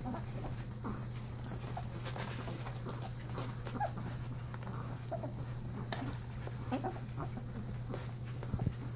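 A litter of two-week-old Newfoundland puppies nursing, giving scattered short, faint squeaks and whimpers over a steady low hum.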